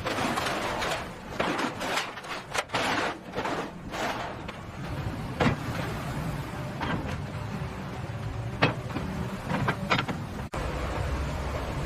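Construction-site noise: a steady low rumble with bursts of hiss in the first few seconds, then a handful of sharp knocks.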